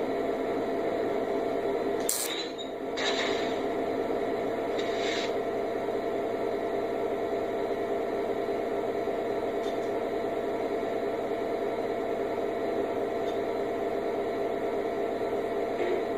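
O-scale model diesel locomotive's onboard sound system playing a steady idling diesel prime mover, with a click about two seconds in and two short hisses soon after.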